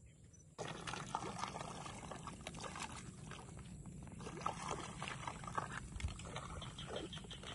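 Water swishing and trickling as a woven basket of forest snails is rinsed by hand in shallow pond water, with many small clicks and splashes, starting under a second in.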